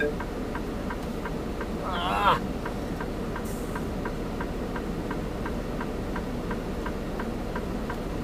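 Freightliner semi truck's diesel engine idling, heard inside the cab, with a steady fast ticking of about four ticks a second over it.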